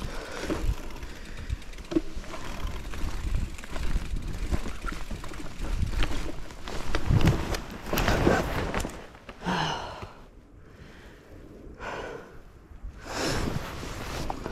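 Mountain bike riding over a rough forest trail: a steady rumble of tyres and rattling bike parts with wind on the microphone. It eases off after about nine seconds, leaving the rider's heavy breaths.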